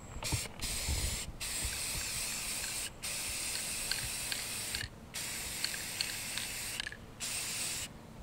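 Aerosol spray paint can hissing in about six sprays, each half a second to two seconds long with short breaks between them.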